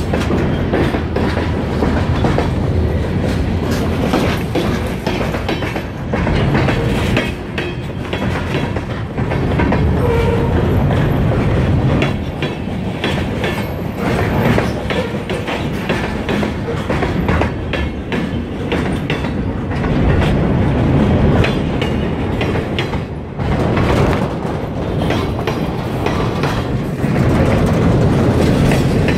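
Kiamichi Railroad freight train passing close by, its wheels clattering over the rail joints in a continuous run of clicks over a low rumble.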